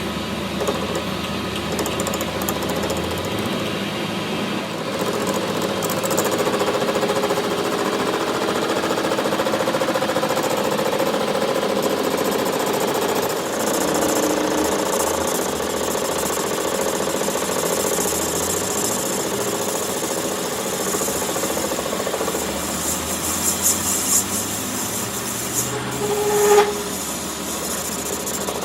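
A metalworking tool running steadily on a crankshaft, a continuous harsh mechanical noise with a short sharper noise about 26 seconds in.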